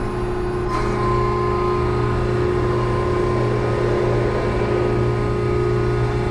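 Steady hum and whine of the hydraulic system driving a Putzmeister MX 36-40Z placing boom as a boom valve is opened from the radio remote. A faint click comes about three-quarters of a second in, and the whine grows slightly stronger after it.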